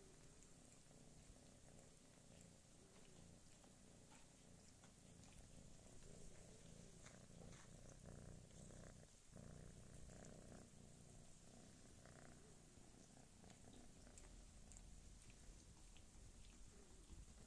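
Domestic cat purring, a faint low rumble that grows louder for a few seconds in the middle.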